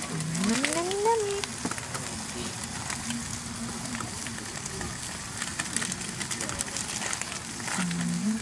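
Beef burger patties sizzling on a gas grill: a steady crackling hiss with small pops. A person's voice rises briefly about a second in, and a short hum comes near the end.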